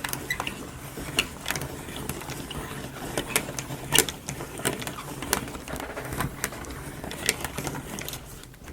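Wooden marble run clicking and clacking: irregular small knocks of wooden parts and marbles, with one louder knock about four seconds in.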